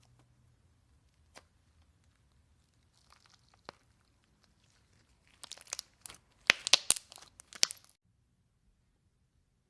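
Slime being squished and stretched by hand, with a few faint pops, then a burst of loud crackling and popping about five seconds in that stops abruptly.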